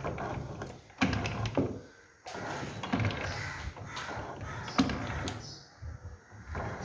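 Irregular scraping and knocking of metal parts being worked by hand, with a few sharp clanks.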